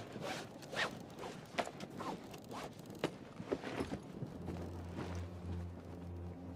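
A string of short, quick rasping and rustling strokes as gear is handled, with a low, steady music drone coming in about four seconds in.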